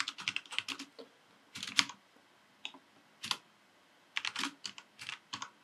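Computer keyboard typing: quick runs of keystrokes broken by short pauses, with a few single keys struck on their own in the middle, as a command is typed.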